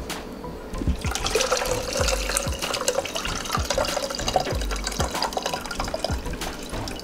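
Rinse water and cooked penne being tipped from a pan into a stainless steel mesh strainer, the water splashing and dripping through the mesh.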